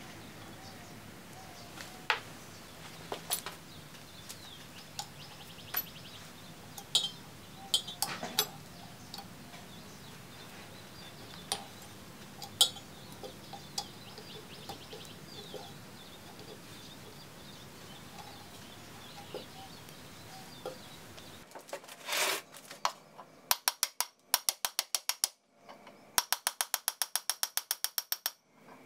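Scattered small metal clicks and taps as the cast-iron cone pulley on a lathe countershaft bracket is handled, then a ratchet wrench clicking in quick runs of about ten clicks a second on the nut at the end of the shaft, taking the drive assembly apart.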